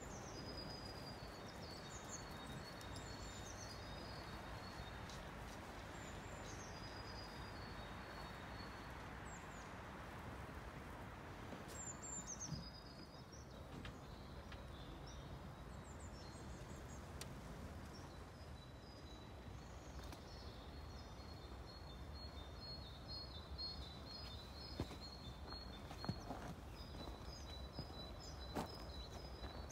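Songbirds singing in the surrounding trees, repeated high chirps and trills, over a steady low background hum of open-air noise. A few faint clicks near the end.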